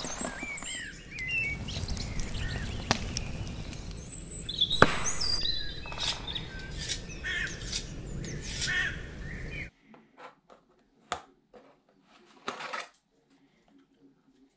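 Birds chirping over a steady background hiss, with two sharp knocks, cutting off abruptly about ten seconds in. A few faint rustles and clicks of a plastic-wrapped package being handled follow.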